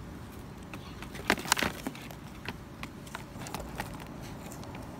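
Light clicks and knocks of plastic toys being handled on cardboard, with a quick cluster of sharper knocks about a second and a half in.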